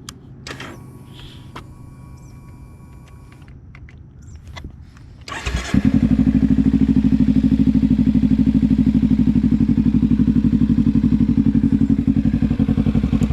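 2014 Kawasaki Ninja 300's stock parallel-twin engine started on the electric starter about five seconds in. It catches at once, idles steadily, then cuts off suddenly at the end. Before the start there is only a faint hum and a few clicks.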